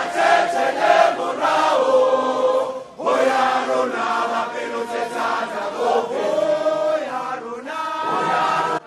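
Background music of a choir chanting in long held notes, with a brief break about three seconds in.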